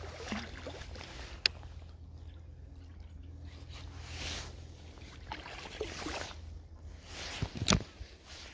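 Water splashing and swishing at the surface as a big soft-plastic swimbait is drawn in close. A sharp click comes about a second and a half in, and a louder thump near the end.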